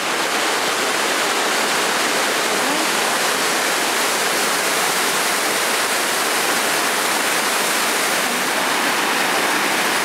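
Waterfall: a loud, steady, even rush of falling water.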